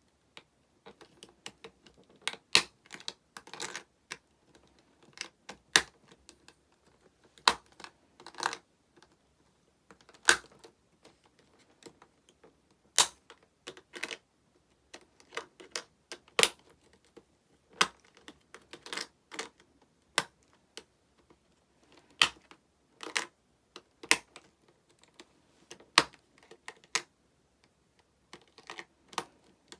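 Irregular sharp clicks and clacks of hard plastic as Prism Stone toy stones and their plastic trunk case are handled, about one or two clicks a second, some in quick pairs.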